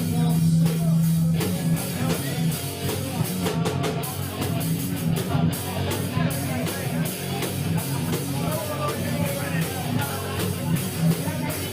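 Live rock band playing: electric guitar, bass and drum kit, with no vocals.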